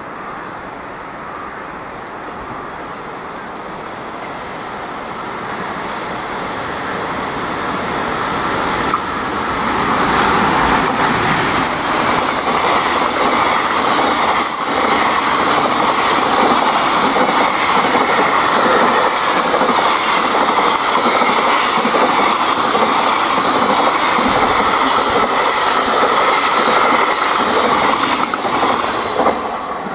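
JR Freight EF510 electric locomotive approaching and passing at speed, then a long train of container wagons rolling by. The wheels clack over the rail joints, building up over the first ten seconds and then holding steady and loud.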